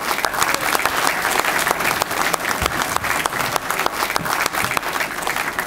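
Audience applauding in welcome: dense clapping that starts all at once and thins out toward the end.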